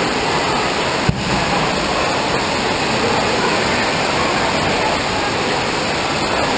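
Steady rush of running water echoing through an indoor water-park hall, with a single knock about a second in.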